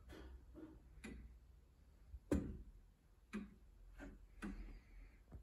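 Brass-dial longcase clock by Thomas Phippard ticking about once a second, with one louder tick a little over two seconds in, as its pendulum is set swinging after the hands were set to time.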